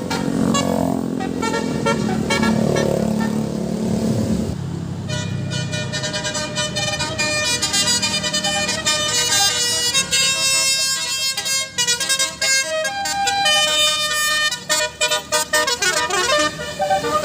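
Bus 'telolet' basuri multi-tone horn playing a melody of held and changing notes, starting about four and a half seconds in over the bus's engine rumble. Later the notes come in short, quick on-off blasts.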